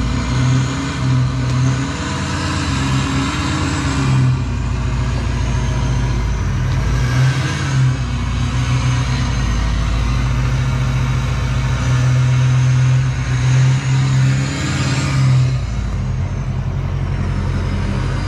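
Ford F-250 Super Duty pickup's engine running as the truck is manoeuvred, swelling a few times as it is given throttle.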